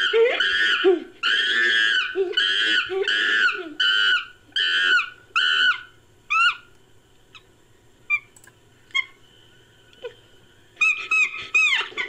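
Chimpanzee calls layered into an ape-man creature sound effect: a run of loud, high-pitched calls, each shorter than the one before, with lower calls under them. About halfway it thins to a few faint calls, and near the end a new burst of rapid calls starts.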